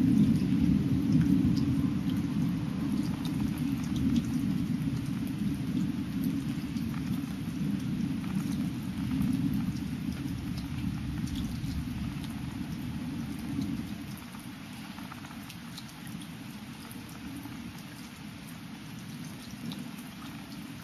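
Thunder rumbling, loud at first and dying away over about fourteen seconds, with scattered raindrops ticking throughout.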